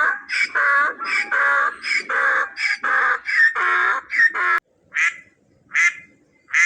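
Ducks quacking in a fast run of calls, three to four a second, that cuts off abruptly about four and a half seconds in, followed by three single quacks spaced apart.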